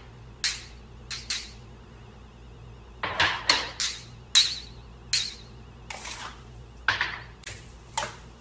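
Glass and ceramic cups clinking and being set down on a counter: about a dozen sharp clinks, each with a brief high ring, coming in irregular clusters.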